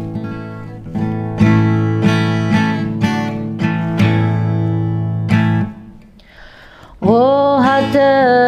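Guitar strummed in chords, a new strum every half second or so, stopping a little over five seconds in. After a short pause, a woman starts singing about seven seconds in.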